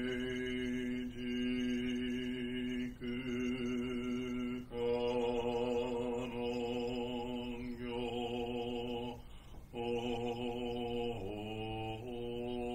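A single male voice chanting a Japanese Buddhist sutra in the Zen style, on one steady monotone pitch with long, joined syllables. There is a short pause for breath about nine seconds in.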